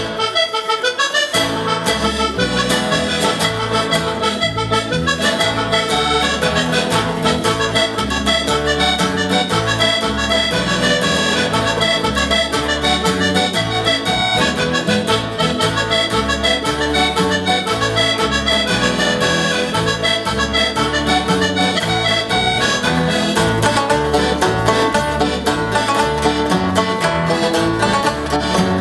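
A piano accordion and an acoustic guitar playing a lively tune together, the accordion leading over the guitar's steady rhythm.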